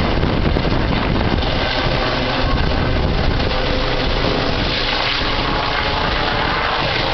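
Yellow ADAC rescue helicopter climbing away after takeoff: loud, steady rotor and turbine noise. Rotor downwash is buffeting the microphone.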